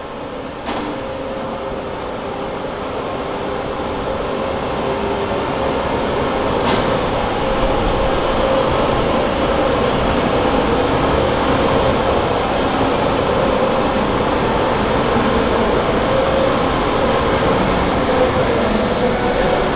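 Workshop overhead crane carrying a bare 400 kg train axle: a steady mechanical rumble with a faint whine, growing louder over the first several seconds and then holding, with a few light metallic clicks.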